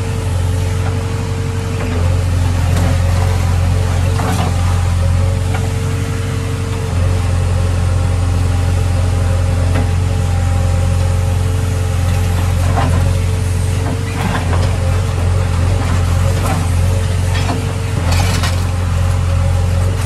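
JCB 3DX backhoe loader's diesel engine running steadily, with a hydraulic whine that cuts in and out as the backhoe levers are worked. A few scattered knocks come from the bucket working through rubble.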